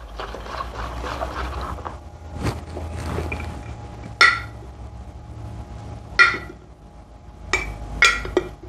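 A wire whisk stirring runny batter in a plastic bowl, then a metal spoon clinking sharply against a glass jar about six times while scooping out cornmeal.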